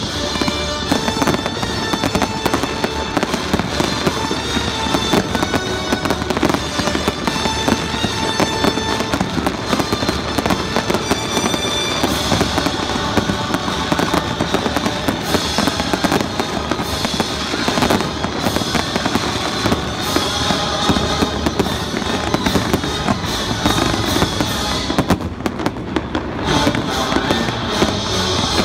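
Fireworks bursting in a dense, continuous run of bangs and crackles, with music playing underneath.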